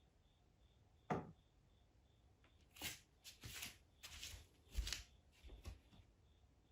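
A single sharp tap about a second in, then several short rustling, scraping sounds over the next few seconds.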